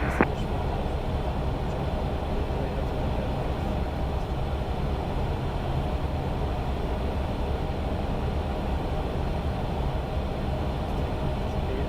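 Steady flight-deck noise of an Airbus A320 on approach: a constant rush with a low hum beneath it.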